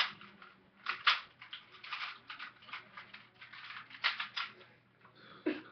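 Rubik's cube being turned quickly by hand: a run of rapid, irregular plastic clicks and clacks as the layers snap round.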